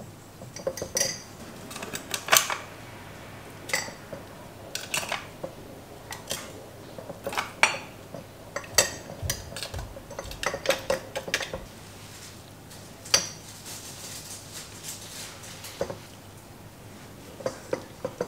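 Lumps of rock sugar being placed into a glass jar of lychees, clinking against the glass and each other in irregular, separate clicks, some with a short bright ring.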